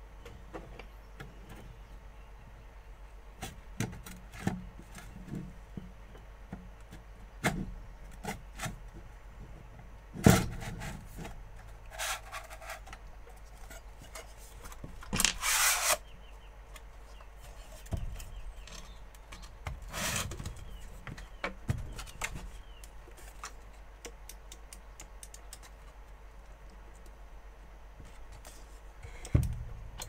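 Harvester joystick control box being reassembled by hand: the panel is slid into its metal case and the box is handled on the bench, giving scattered clicks, knocks and scrapes. The loudest knock comes about ten seconds in, and a scrape lasting about a second comes around fifteen seconds in.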